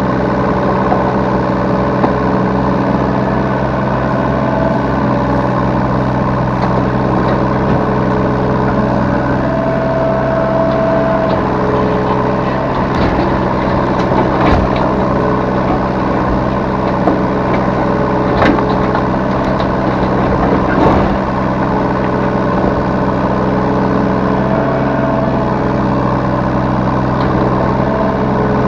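Yanmar B3 Sigma 3-ton mini excavator's diesel engine running steadily, with higher tones coming and going over it and a few sharp knocks.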